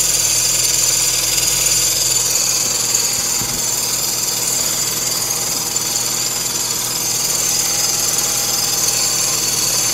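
Mini Cooper engine running with a steady high-pitched whine, the noise the owner suspects comes from the alternator or the water pump.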